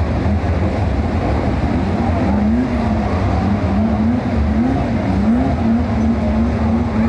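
A pack of saloon stock car engines running together at racing speed, with one engine's pitch repeatedly climbing and dropping back about every half second from about two seconds in, as it revs on and off the throttle.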